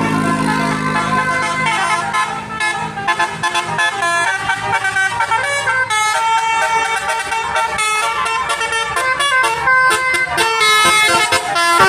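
Bus 'telolet' musical air horns playing a fast melody of short notes that change pitch in quick steps. A low steady hum sits under the first half.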